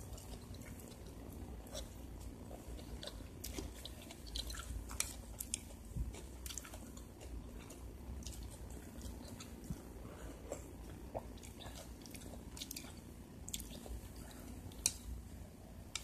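A person chewing mouthfuls of rice and noodle soup, with scattered sharp clicks of a metal spoon against a ceramic bowl and plate.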